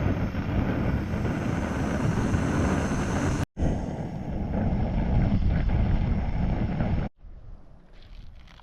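Wind buffeting the microphone: a loud, gusty rumbling rush that cuts off abruptly twice, then drops to a much quieter hiss near the end.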